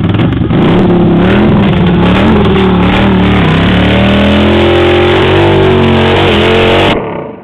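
Motorcycle engine revving hard for a burnout, held at high revs with its pitch wavering up and down. It cuts off suddenly near the end.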